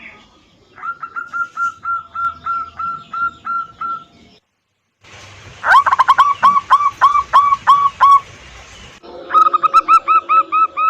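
Zebra doves (local perkutut) cooing in rapid series of short, repeated hooked notes, about three a second. There are three separate recordings spliced together, each cut off abruptly, with a short silence before the second and the loudest run in the middle.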